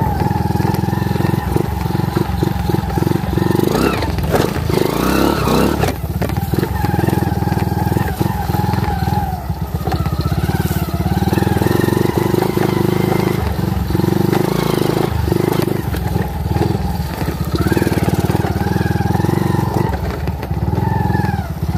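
Modified dirt bike's engine running under way across rough, stubbly field ground, revving up and falling back every few seconds, with knocks and rattles from the bumps.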